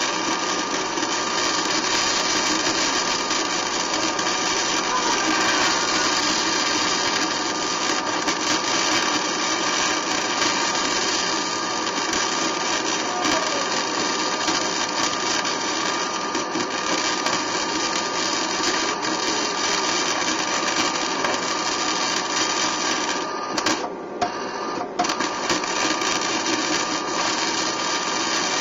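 A power tool running steadily on the truck frame's rivets, a continuous mechanical whir with a brief stop near the end before it starts again.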